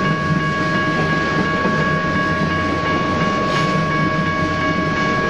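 BNSF freight train of tank cars rolling past on steel rails: a steady rumble of wheels with a constant high-pitched squeal running over it.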